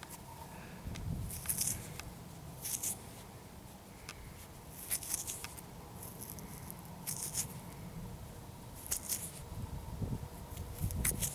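Short scratchy rustles of soil being scraped and crumbled by hand while searching a freshly dug plug for a small metal find, every second or two, over a low rumble of wind on the microphone.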